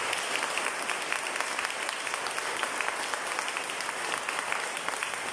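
Audience applauding: dense, steady clapping from many hands that slowly fades.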